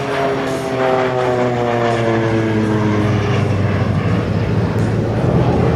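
Embraer EMB 312 Tucano turboprop flying past, its propeller tone falling in pitch over the first few seconds as it goes by, over a steady low drone.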